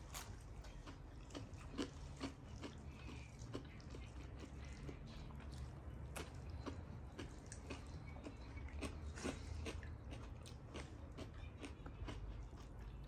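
A person biting and chewing crisp raw cucumber slices, a steady run of small, irregular crunches.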